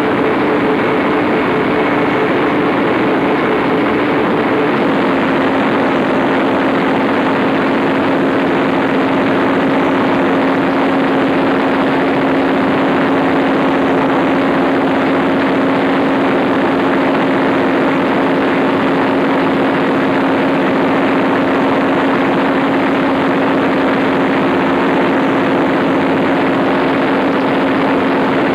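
Fairbanks Morse diesel generator engine running steadily under load, a loud even din with a constant low drone.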